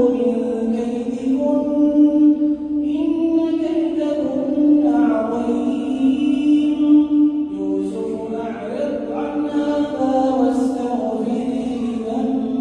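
A male imam chanting the Quran in melodic tajweed recitation, holding long drawn-out notes and stepping between pitches, with a lower new phrase beginning just past halfway.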